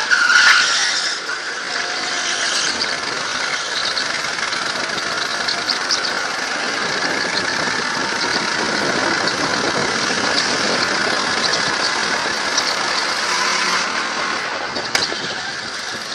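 Go-kart engine running at racing speed on an indoor kart track, with a short tyre squeal about half a second in as the kart slides through a bend. A single sharp click near the end.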